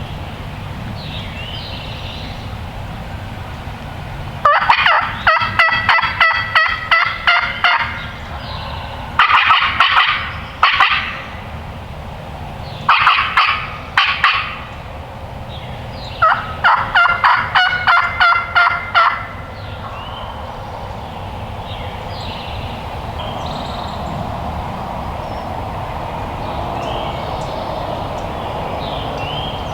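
Wild turkey calling: four loud runs of quickly repeated notes in the first two-thirds, with fainter calls scattered between and after them.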